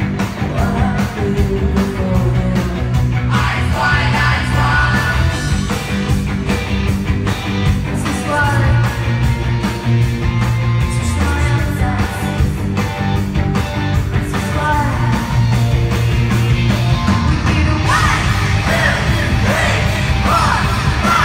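An alternative rock band playing live and loud, with electric guitars, bass, drums and a singer, heard from within the crowd. Voices yell and sing over the band, most strongly near the end.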